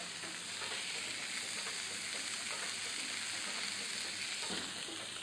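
Pieces of meat sizzling steadily in hot oil on a steel griddle plate.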